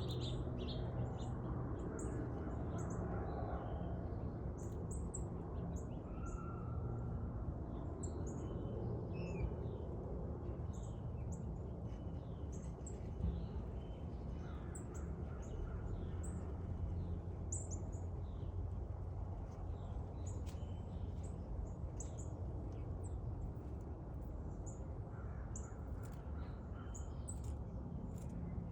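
Birds chirping, many short high calls overlapping through the whole stretch, over a steady low background rumble.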